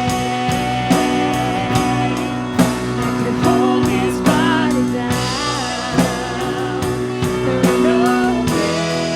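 Live worship band playing: guitar and drum kit with regular beats, and a voice singing a wavering melody through the middle.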